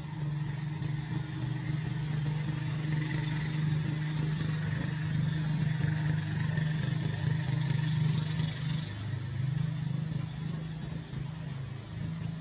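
A steady low engine hum, dropping slightly in pitch about nine seconds in.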